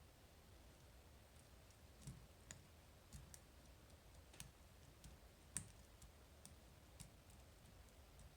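Faint, scattered metallic clicks of a lock pick and tension tool working the rotating pins of a Medeco lock, about six clicks a second or so apart.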